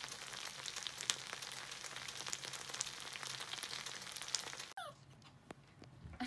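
Beef and rice sizzling on a hot electric hot plate, a steady hiss dotted with small pops. It cuts off abruptly about three-quarters of the way through, leaving quieter sounds and a short knock near the end.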